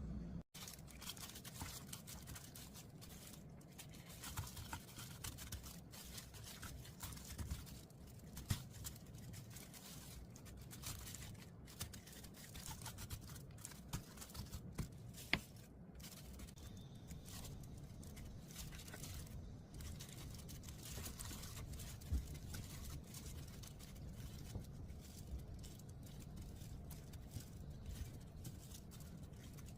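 Faint handling noise: scattered small clicks, taps and rustles over a low steady room hum.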